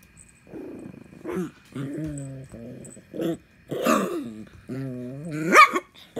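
Small Chihuahua–dachshund mix dog growling in a string of about five short growls, warning off kittens that are pawing at its face. The last growl rises sharply into a high yelp about five and a half seconds in.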